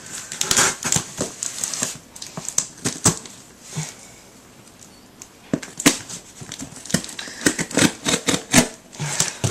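A tightly wrapped mail-order box being handled and picked at while trying to open it: scattered sharp clicks, scrapes and crinkles, with a short lull about halfway through and a quicker run of clicks after it.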